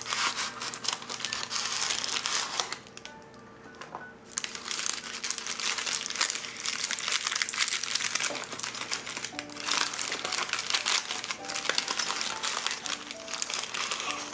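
Crinkly wrapper around a binchotan charcoal stick rustling and crinkling as it is handled and unwrapped, in long spells with a pause of about a second and a half near three seconds in. Soft background music with held notes plays underneath.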